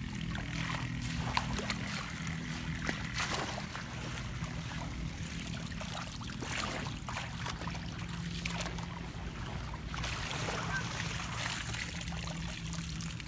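Water splashing and trickling as a woven bamboo fishing basket (chhneang) is dipped into shallow muddy water and lifted out, the water draining through the weave. A low steady hum runs underneath.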